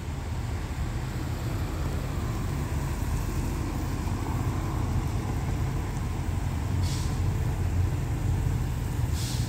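Diesel-hauled express passenger train approaching the station: a low locomotive rumble that grows gradually louder, with two short hisses about seven seconds in and near the end.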